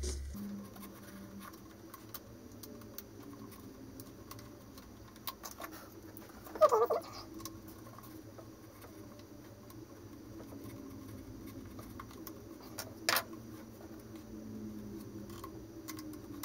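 Razor blade sawing and scraping through a paper wrap on a model rocket body tube: faint scratching with scattered small clicks. A brief squeaky scrape comes about seven seconds in, and a sharp click about thirteen seconds in.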